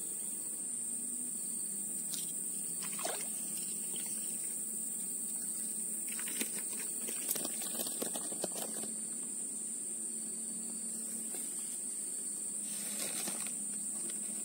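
Steady high-pitched insect drone from the surrounding vegetation, with a cluster of sharp clicks and light rustling around the middle.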